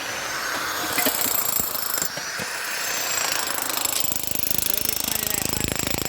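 Construction-site power tool noise: a rapid, even hammering sets in about four seconds in, over a steady hiss of machinery.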